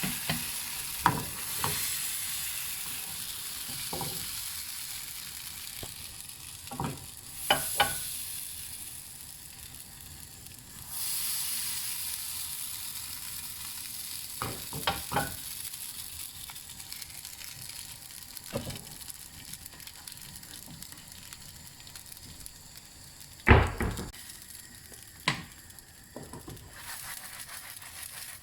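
Pancake batter sizzling in a hot, oiled frying pan, the sizzle swelling a couple of times. It is broken by occasional sharp knocks of a utensil against the pan, the loudest one late on.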